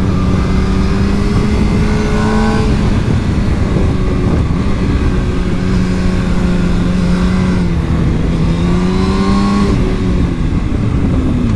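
Motorcycle engine running steadily under load on a mountain-pass climb. Its note rises briefly about two seconds in and again near the end, then falls away, over a continuous rush of wind and road noise on the rider's microphone.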